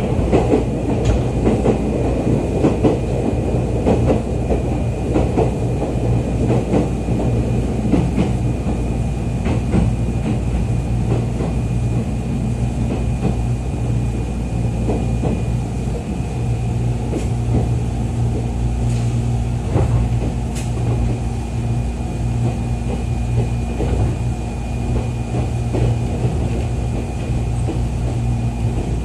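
Interior running noise of a Jomo Electric Railway 700 series electric train (ex-Keio 3000 series) under way: a steady low rumble with scattered clicks of the wheels over the rails.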